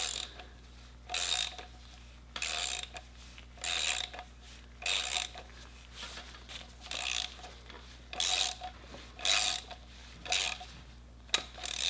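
Socket ratchet clicking in short runs about once a second as it turns an M10×1.5 thread chaser into a gunked-up blind hole in an old transmission case. Each run is the ratchet's backstroke between turns.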